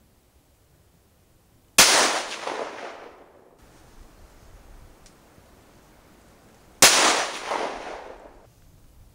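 Two .204 Ruger rifle shots about five seconds apart, each a sharp crack followed by an echo dying away over about a second and a half. These are handloads fired in a maximum-safe-pressure workup.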